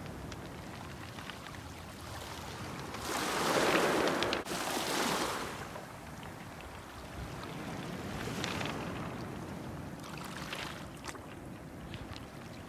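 Small waves washing onto a pebble beach, with a louder wash about three to five seconds in and weaker ones later.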